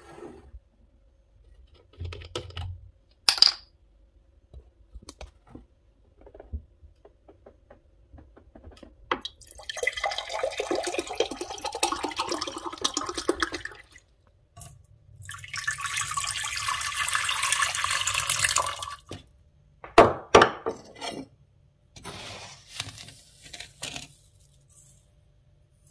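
Water poured into a glass tumbler for about five seconds, then a second pour of about four seconds, likely into a steel pot, with sharp knocks and clinks between and after the pours.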